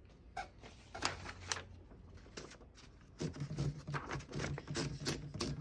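Light metal clicks and rattles from the paper fingers of a 1938 Corona Standard portable typewriter being slid side to side by hand. The clicks are scattered at first and come thicker in the second half.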